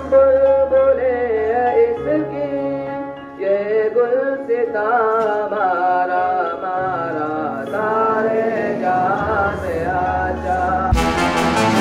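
Singing of one melodic line in long, wavering, drawn-out notes over steady low sustained tones. Near the end it switches to brighter instrumental music with a quick, regular beat.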